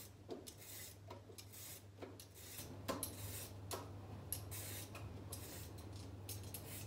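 Carrot being peeled by hand: irregular scraping strokes of a blade along the skin, roughly one a second, over a steady low hum.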